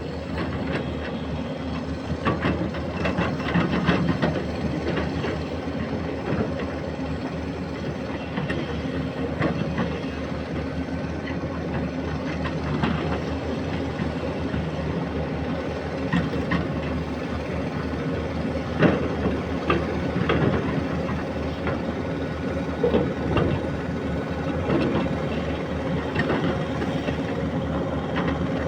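Excavator's diesel engine running steadily, with scattered metallic clanks and knocks from the machine at work.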